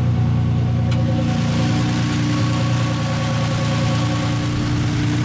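Turbocharged VQ35HR 3.5-litre V6 running at a steady idle, with a single sharp click about a second in.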